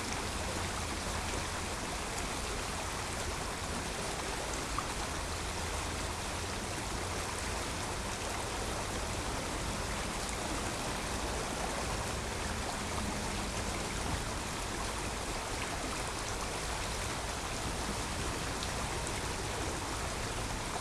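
Creek water flowing steadily, a continuous rushing and babbling with no break.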